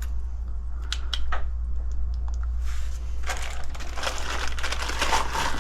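A few sharp clicks, then from about halfway through a dense crinkling, rustling handling noise, over a steady low hum.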